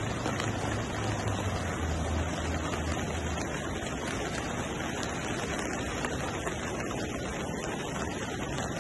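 Steady rushing noise of heavy rain and fast-flowing floodwater over a flooded sports field, with a low hum in the first few seconds.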